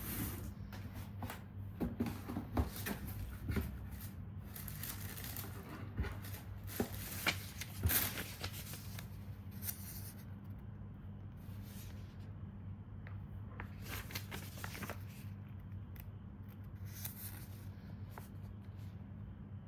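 Paper pages of a printed user manual being turned one after another, with short rustles and flicks that come more often in the first half. A steady low hum runs underneath.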